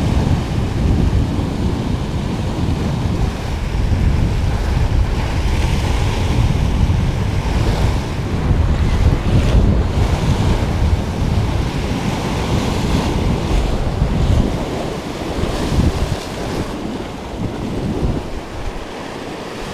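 Heavy sea swell breaking and washing white over shoreline rocks, with strong wind buffeting the microphone; the rumble swells and eases with the waves.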